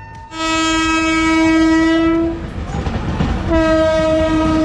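Indian Railways electric locomotive's horn sounding two long single-note blasts: the first lasting about two seconds, the second starting about three and a half seconds in, with train noise between them.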